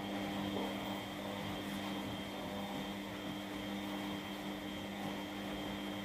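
Front-loading washing machines running mid-wash: a steady motor hum with a faint high whine.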